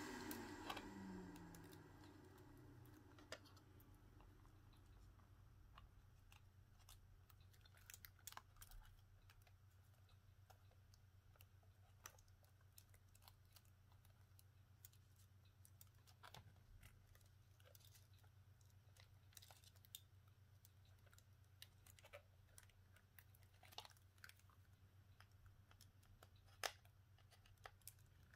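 Near silence with scattered faint clicks and ticks of small parts and hand tools being handled during a phone repair. A small motor winds down over the first few seconds, its pitch falling.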